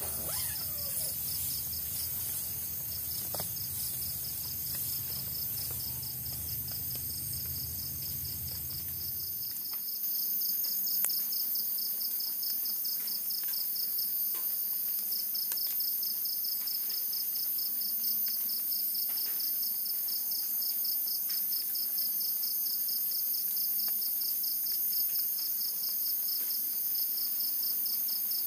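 Night insects calling in a steady chorus: a rapidly pulsing trill with a continuous high buzz above it. A low rumble underneath stops abruptly about a third of the way in.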